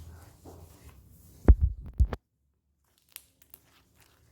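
A few dull, low thumps in quick succession, the loudest about a second and a half in and another half a second later. After them the sound cuts out completely for about a second, and faint clicks follow.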